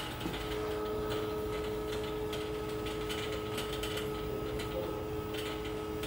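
Steady machinery hum of pumps and equipment in a boiler and water-heater room, made of several level tones, with a higher tone joining about half a second in and a few faint ticks.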